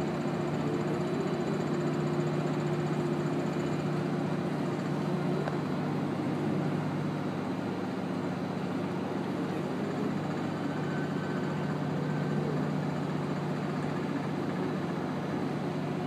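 Boat engine running steadily with an even low drone, over a constant rush of noise, as the vessel moves through the lock chamber.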